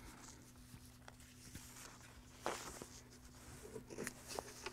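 Faint rustling and handling of paper sheets as pages are lifted and shuffled, a few soft brushes and ticks about halfway and again near the end, over a steady low hum.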